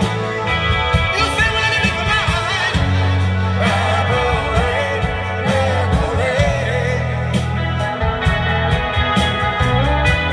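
Live rock band playing, with a man singing into a microphone over bass and drums.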